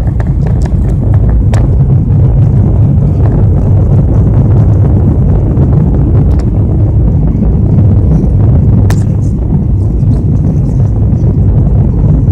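Airliner cabin noise heard from a window seat on final approach with flaps extended: a loud, steady, deep rumble of engines and airflow, with a couple of faint clicks.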